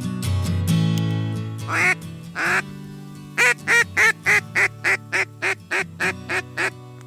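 Mouth-blown duck call (reed call) imitating a hen duck's quacking to lure drakes: two long quacks, then a quick run of about a dozen quacks that fades toward the end. Background music plays underneath.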